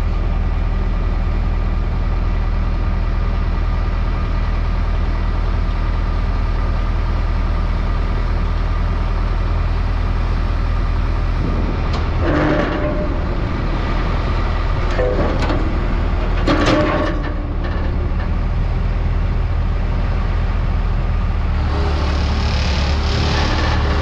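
Bulldozer's diesel engine running steadily while it uses a chain to drag a heavy steel track idler off the offset discs. A few metal clanks come in the middle, and the engine grows louder near the end as the idler lifts away.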